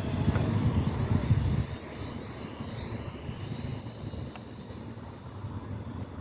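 Small camera drone's motors whining, rising and falling in pitch, with heavy wind buffeting the microphone for the first couple of seconds.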